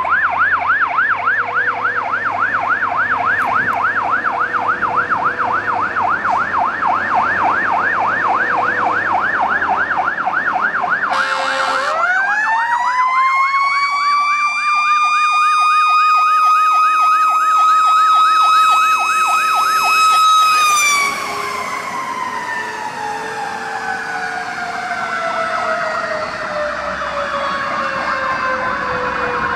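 Fire engine siren on an emergency run: a fast yelp of about three to four sweeps a second, broken by a short blast about eleven seconds in, then a wail that climbs to a held high pitch and slowly winds down over the last nine seconds.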